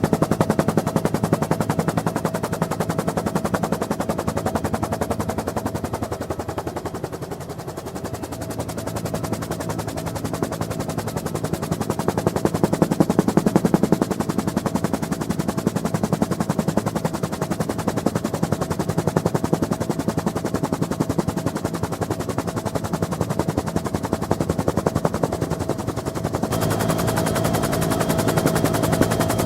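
Bell UH-1N Twin Huey helicopter heard on board in flight: the rapid, steady chop of the main rotor blades over the drone of its twin turbines, with a steady whine. The level dips and swells. Near the end the sound brightens and a higher whine comes in.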